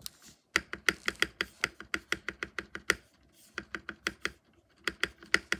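Mechanical keyboard spacebar being tapped rapidly, a quick run of sharp clacks at about six a second that breaks off briefly twice.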